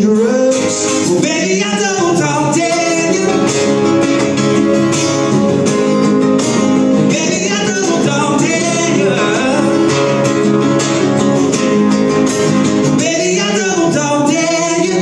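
Two acoustic guitars strummed and picked under a man's singing voice, a live acoustic duo performing a song.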